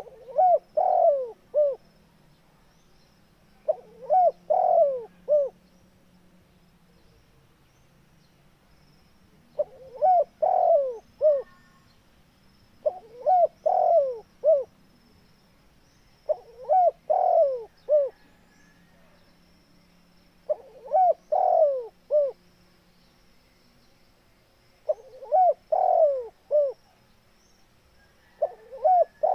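Spotted dove cooing: its short phrase of three or four rounded coo notes, about a second and a half long, repeated eight times every few seconds, the last cut off at the end.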